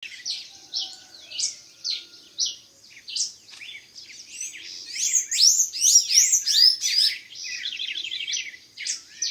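Several songbirds chirping and singing together in a dawn chorus: quick, short, overlapping notes, busiest in the middle.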